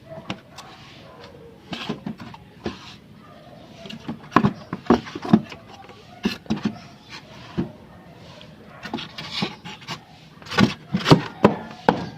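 Irregular clicks, knocks and rubbing as parts of a window-type air conditioner are handled while its wiring and control panel are refitted.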